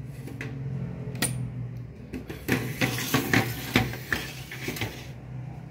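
Hard objects clattering and knocking as stereo equipment is handled and shifted: a run of irregular knocks and rattles, over a low steady hum.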